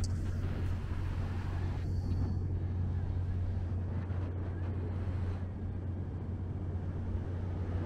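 Outdoor street ambience with a steady low hum of vehicle engines.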